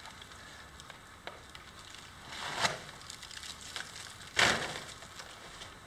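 A rough, granular cast slab scraping and grating against a gritty surface as it is lifted and shifted: two gritty scrapes about two seconds apart, the second a little louder.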